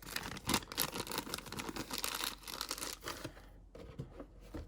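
Thin plastic parts bag crinkling and rustling as a small model kit part is put into it. The crackling is dense for about the first three seconds, then thins out to a few faint rustles.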